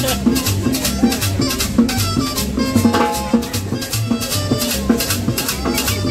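Latin dance music played live by a street band: congas and timbales with a shaker keep a quick, even beat over a pulsing bass line, with melodic lines above.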